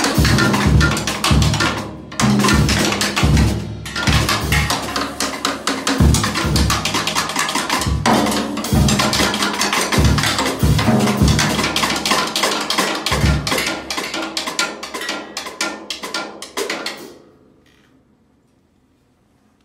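Solo drums and percussion played in a busy, dense pattern: rapid strokes with heavy low drum hits underneath. The playing thins out and dies away about 17 seconds in, leaving near silence for the last two seconds.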